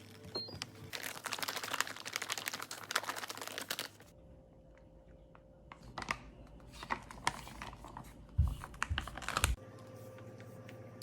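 A dense run of rapid small clicks and taps for about three seconds, like typing on a keyboard, then scattered clicks with a couple of soft thumps near the end.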